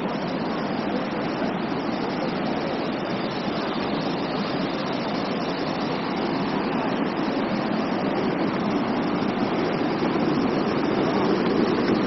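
Steady rushing of the Triberg waterfalls, water cascading over rocks into the stream, growing a little louder toward the end.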